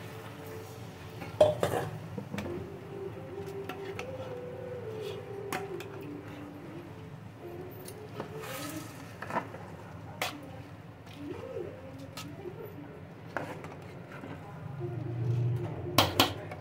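Steel ladle clinking and scraping against a large aluminium cooking pot as rice is stirred into a vegetable masala. The sharp clinks are irregular, with the loudest about a second and a half in and a quick pair near the end.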